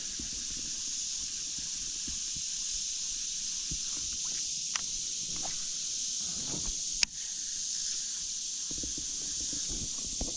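Steady high-pitched outdoor hiss, with a few light knocks and clicks. A single sharp click about seven seconds in is the loudest sound.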